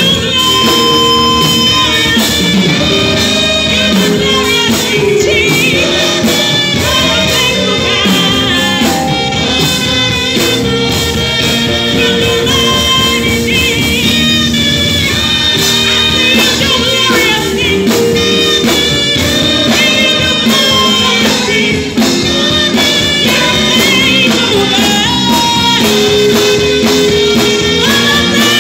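Church choir and a lead singer singing a gospel worship song over a live band with drums, through microphones.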